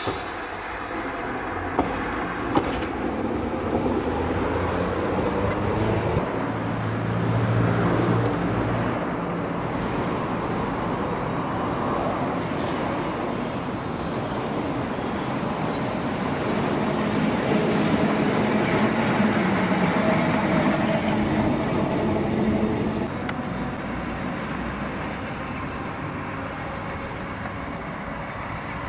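Tram running on street track: wheels rumbling on the rails under a motor whine that rises and falls in pitch, growing louder about eight seconds in and again around twenty seconds in.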